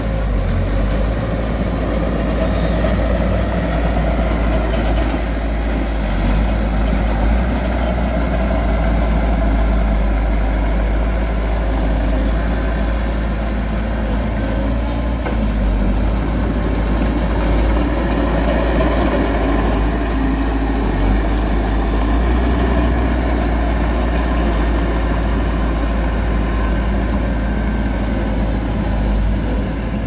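Small Mitsubishi crawler bulldozer's diesel engine running steadily as the machine pushes and spreads loose soil.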